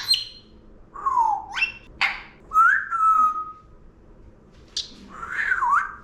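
Congo African grey parrot whistling a string of about five notes. Several slide down and up in pitch, and one rises and then holds steady about three seconds in.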